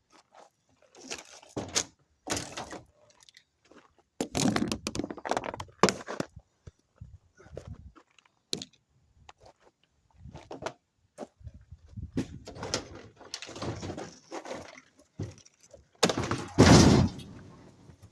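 Salvaged scrap parts being pulled apart by hand: irregular knocks, clacks and rattling of metal and plastic pieces, with one heavy thunk near the end.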